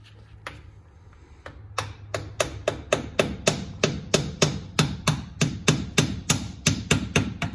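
A hammer tapping repeatedly at the edge of a truck's rear differential cover to break it loose, a steady run of sharp blows about three to four a second that starts about two seconds in.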